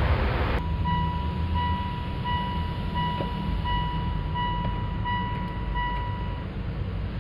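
Mitsubishi Outlander PHEV's petrol engine running under the bonnet, cut off abruptly about half a second in. Then the instrument-cluster chime beeps about nine times at an even pace while the car is switched off, over a low steady hum.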